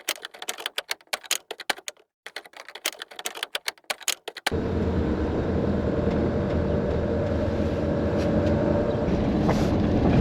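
A quick run of sharp, irregular clicks like typing. About four and a half seconds in, it cuts suddenly to the steady engine and road noise of a Westfalia camper van on the move.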